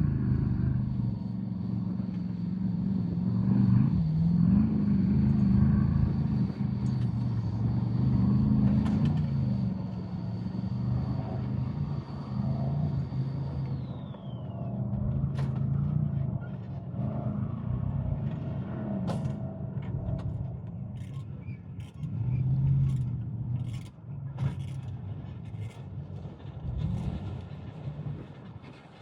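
Off-road race vehicle engine running and revving up and down in uneven surges. A thin high whine drops away about fourteen seconds in. Scattered sharp clicks follow in the second half.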